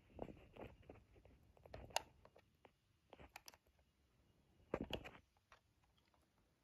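Faint scattered clicks and small knocks of handling, in short clusters: a sharp click about two seconds in and a louder cluster just before five seconds.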